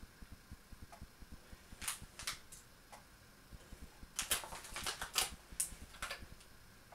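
Thin aluminium foil tray crinkling and clicking as raw mince is pulled out of it by hand, in a short cluster about two seconds in and a longer run from about four to six seconds in.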